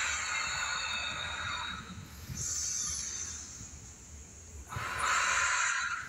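A person breathing audibly in three long, breathy hisses spaced a couple of seconds apart; the middle breath is shorter and higher.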